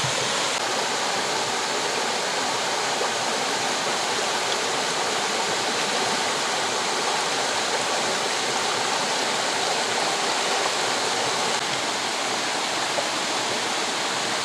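A small rocky brook rushing over stones in shallow rapids: a steady, unbroken sound of running water.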